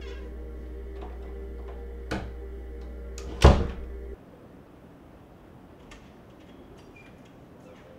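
A door shutting with a loud thud about three and a half seconds in, after a lighter knock about two seconds in, over a steady low hum that cuts off suddenly a little after four seconds.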